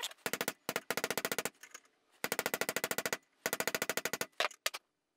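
Hammer tapping a 1-inch steel pipe that drives a new ball bearing onto an induction motor's 25 mm rotor shaft by its inner race: four runs of rapid, ringing metal-on-metal taps, about ten a second, then a few single taps near the end. It is the sound of the bearing being seated on the shaft.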